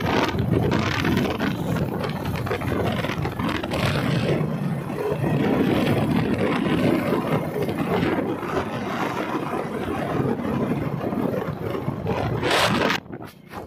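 Wind buffeting the microphone over a vehicle's running engine, heard while riding in the open on a moving vehicle; the noise drops away briefly near the end.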